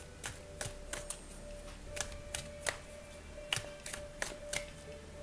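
A deck of oracle cards shuffled by hand: irregular soft clicks and snaps of the cards against each other, over faint background music.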